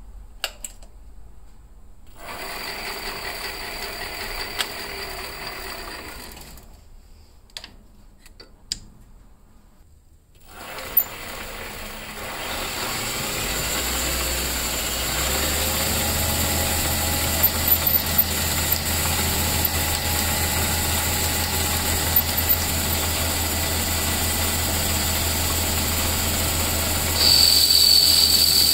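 Benchtop metal lathe spinning a four-jaw chuck: a few light clicks, then the motor starts up about ten seconds in and runs steadily with a low hum. Near the end the tool bit starts cutting the spinning cue joint piece, louder with a high steady whine.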